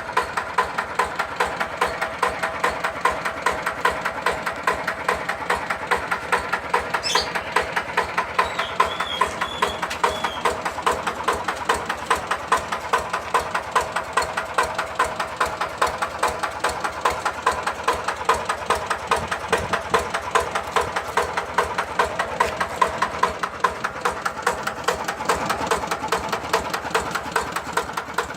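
Yanmar TF85 single-cylinder diesel engine on a G3000 hand tractor, running steadily with an even, regular beat of firing strokes.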